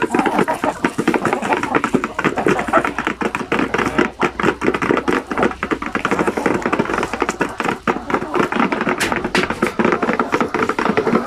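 Dense, rapid clatter of many beaks pecking grain from the pan of a plastic chicken feeder as several native Basilan chickens feed together.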